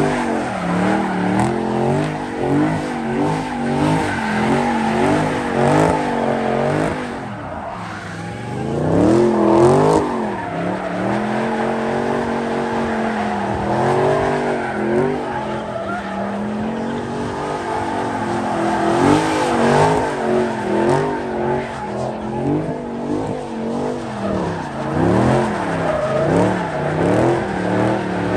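A car's engine revving up and down while its tyres squeal and skid through donuts, the engine pitch rising and falling throughout. The noise dips briefly about eight seconds in, then jumps back with a sharp rev.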